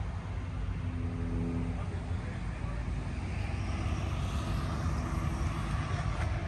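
A steady low engine hum, with a broad rush of noise that swells through the middle seconds and eases again, as of a vehicle passing.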